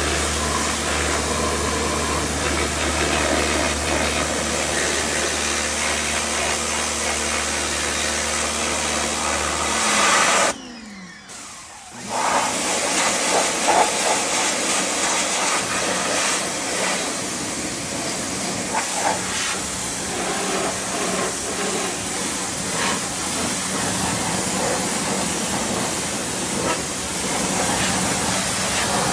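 Pressure washer spraying water onto a motorcycle: a steady hiss of spray over the hum of the machine's motor and pump. About ten seconds in, the spray cuts off for a second or two while a falling tone is heard as the motor winds down, then the spraying starts again.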